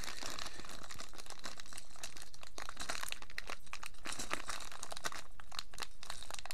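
A clear plastic bag crinkling and crackling as hands handle it and open it to take out a Beyblade Burst top. The crackles are dense and irregular, with no pauses.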